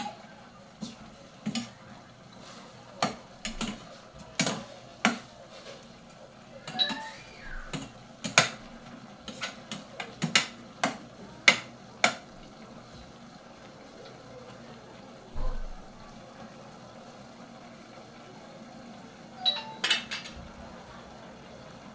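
Metal spoon stirring pork adobo in a steel pot, clinking and scraping against the pot's sides in irregular strikes for about the first twelve seconds. A few more metal clinks come near the end.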